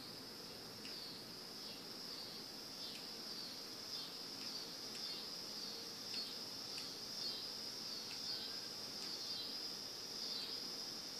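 A steady, high-pitched insect-like trill runs throughout. Faint soft taps come now and then as a kitten scampers and pounces on carpet.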